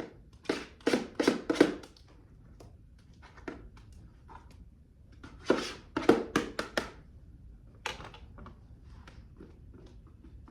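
Kitchen handling noise while a banana pudding is assembled: two quick clusters of four or five knocks and thuds, a few seconds apart, with light taps in between.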